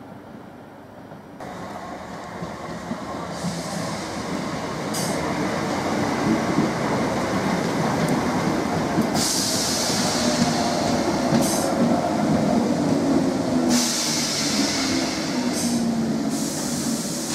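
A Greater Anglia electric multiple unit running alongside the platform. Its wheels-on-rail rumble builds over the first few seconds and then holds steady, with a faint whine and several stretches of high hiss.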